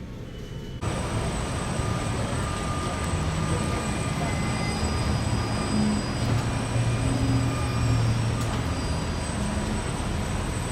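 Road traffic noise: a steady rumble of passing vehicles with low engine hum shifting in pitch, coming in suddenly about a second in.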